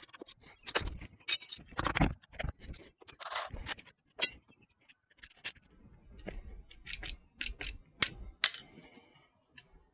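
Wrench and metal parts clinking and scraping as the bolts of an ATV's rear brake caliper are undone: scattered sharp metallic clicks and rattles, with one loud ringing clink about eight and a half seconds in.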